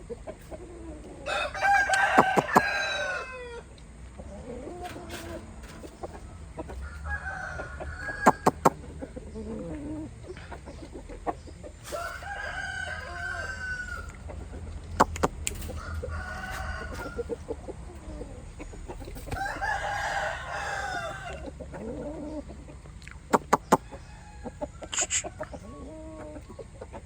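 Rooster crowing three times, each crow about two seconds long and spaced roughly ten seconds apart, with shorter clucking calls between the crows. A few sharp clicks are also heard.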